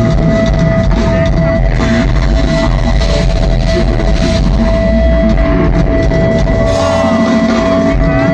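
Live rock band playing loud, with drum kit and guitars over a steadily held note; a lower sustained note comes in near the end.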